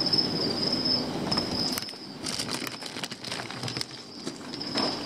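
Plastic bag liner and crumpled newspaper packing rustling and crinkling as hands rummage through a shipping box, in a run of small crackles. A steady high-pitched tone sounds underneath.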